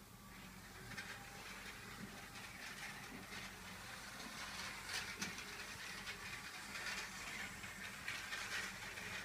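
Lego Power Functions train running along plastic track: a steady rolling whirr with light clicks from the wheels, getting a little louder as it goes.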